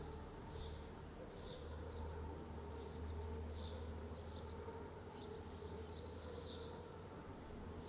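Outdoor village ambience: short, high-pitched chirps repeating irregularly, about one or two a second, with one longer chirp a little after five seconds in, over a steady low rumble.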